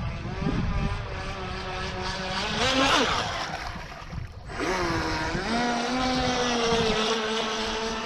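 Radio-controlled speedboat's motor whining under throttle: the pitch climbs to a peak about three seconds in, drops out briefly just past halfway, then climbs again and holds steady. Wind buffets the microphone underneath.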